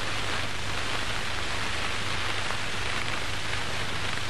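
Steady hiss and faint crackle of an old film soundtrack, over a low steady hum, with no distinct event.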